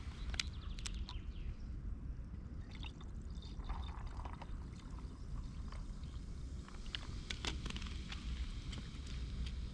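Water poured from a plastic bottle into a plastic jug of spritz, a short trickle a few seconds in. Sharp clicks and knocks of bottles being handled come near the start and again near the end, when the plastic bottle's cap is screwed back on.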